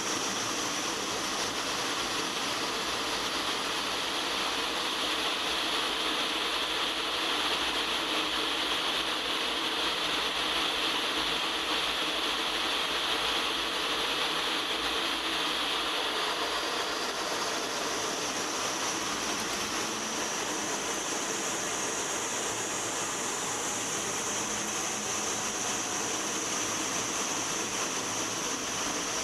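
Steady rushing cockpit noise of an A-10 Thunderbolt II in flight: airflow over the canopy and the whine of its twin General Electric TF34 turbofan engines. A high whine in the noise moves higher a little past halfway through.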